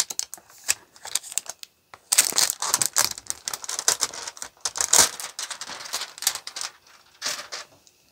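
Clear plastic wrap crinkling and crackling as it is torn and peeled off a cardboard box, in dense bouts that thin out near the end.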